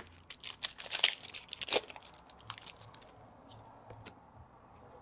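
Foil hockey-card pack wrapper torn open and crinkled: a run of sharp crackling rustles in the first two seconds, followed by a few faint ticks and rustles as the cards are handled.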